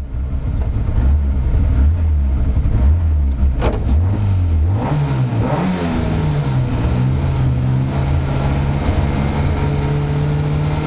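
Lada 2107 rally car's four-cylinder engine heard from inside the cabin, idling unevenly with small throttle blips. About five seconds in it is revved up and then held at steady raised revs, waiting to launch from the stage start line.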